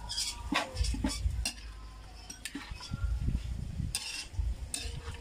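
Metal ladle scraping and clinking against a metal wok as chopped innards are stirred and sautéed, with a light sizzle underneath. The strokes come irregularly, several in the first second and a half and more about four seconds in, with low rumbles in between.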